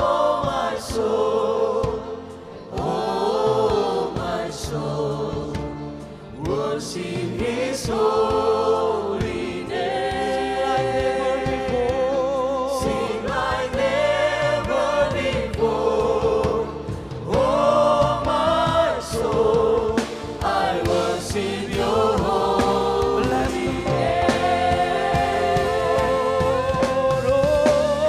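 Church worship singers and congregation singing a slow worship song together, sustained notes with vibrato over a band accompaniment.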